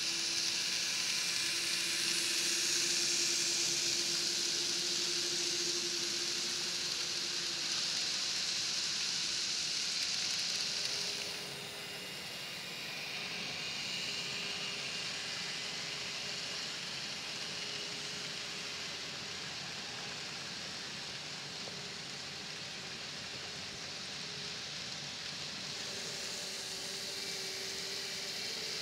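N-scale model freight train running: a steady hiss of many small wheels rolling on the rails, with a faint even whine from the diesel locomotives' motors. It gets quieter about eleven seconds in.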